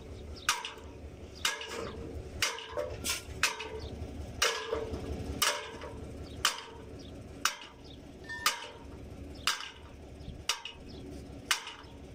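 Hammer blows on the steel joint of a borewell riser pipe, about one a second and sometimes two in quick succession, each a sharp metallic clank with a short ring: the crew is knocking a pipe section loose to pull the pump. A low steady rumble runs underneath.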